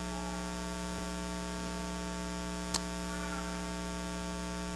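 Steady electrical mains hum in the audio feed, with a single sharp click a little past halfway.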